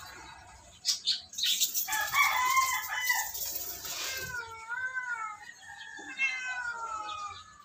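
A large plant pot dragged across a tiled floor, a rough scraping that starts about a second and a half in and lasts a few seconds. Over it an animal calls loudly in long wavering cries, the last one falling in pitch near the end.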